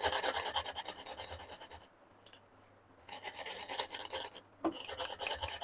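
Wooden rolling pin rolled back and forth over dry-roasted cumin and whole coriander seeds on a chakla, crushing them coarsely. It makes rapid scraping strokes in three bouts with short pauses between.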